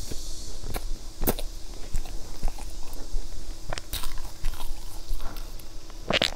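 Close-miked mouth sounds of a person biting and chewing a soft cream-layered cake: scattered sharp wet clicks and smacks, the loudest a cluster about six seconds in.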